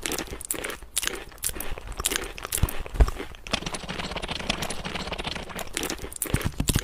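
Eating sounds: a rapid, irregular run of crunching and clicking.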